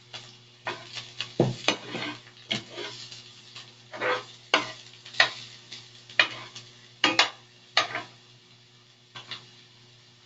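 Chopped garlic and onion being stirred in hot oil in a wok, with the utensil scraping the pan in irregular strokes over a light sizzle; the strokes thin out after about eight seconds.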